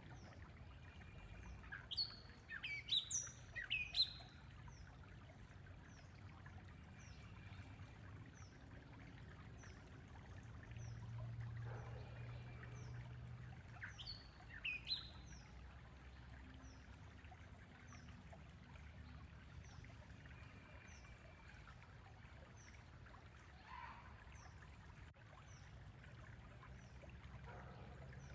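Birds calling: bursts of sharp, quick falling chirps about two to four seconds in, again around fourteen to fifteen seconds and near the end, over a faint run of short high chirps repeating about once a second and a low steady background noise.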